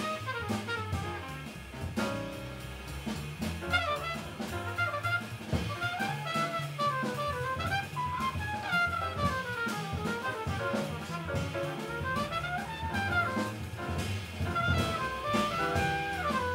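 Jazz quintet playing live: a trumpet carries a fast melodic line that sweeps up and down over piano, bass and drums.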